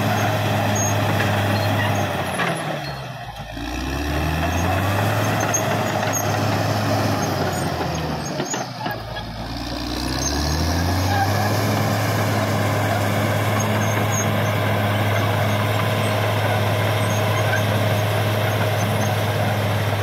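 Caterpillar D6R XL bulldozer's diesel engine running steadily at working revs. Twice, about 3 s and 9 s in, the revs drop and then climb back up.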